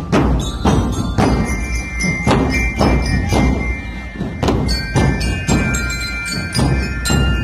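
Marching drum band playing: bass drums beat a steady march, about two strokes a second, with bell lyres (marching glockenspiels) ringing a melody over them from about a second in.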